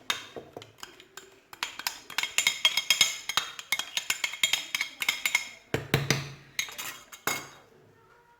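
Metal spoon clinking quickly and repeatedly against a dish with a ringing tone while stirring the warm milk and yeast into the dough ingredients, followed by a couple of duller knocks.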